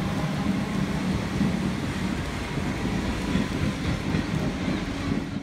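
Comeng electric suburban train pulling away from the platform: a steady rumble of motors and wheels on the rails, with a low hum running through it.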